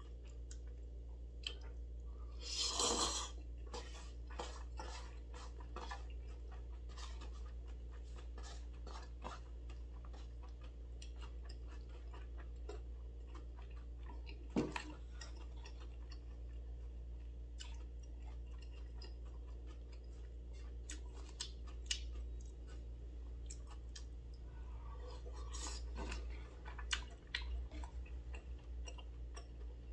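Person eating chewy jjolmyeon noodles and tteokbokki with chopsticks: chewing, a slurp about three seconds in, and scattered light clicks of chopsticks on a disposable bowl, over a steady low hum.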